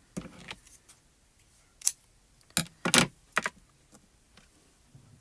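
Small cardstock pieces and craft tools handled on a work surface: a short paper rustle, then several sharp clicks and taps, the loudest about three seconds in.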